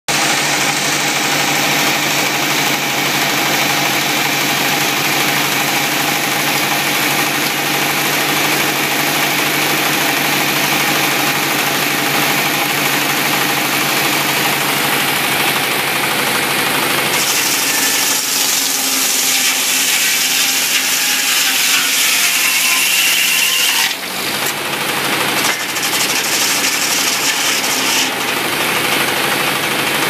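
Sawmill running: a steady engine note, joined a little past halfway by a harsher high hiss, with several abrupt changes and a brief drop in loudness near the end.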